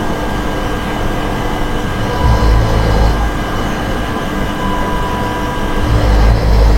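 A sleeper snoring: deep, low snores about every four seconds, one about two seconds in and another near the end.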